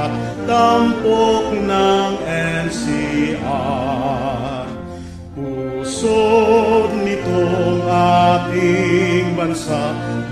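A Filipino regional hymn sung with instrumental accompaniment: long held vocal notes with vibrato, the music easing off briefly around the middle before coming back in full.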